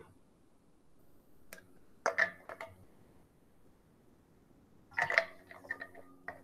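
Two short flurries of clicking and knocking, the first about two seconds in and the second about five seconds in, with a faint low hum after the second.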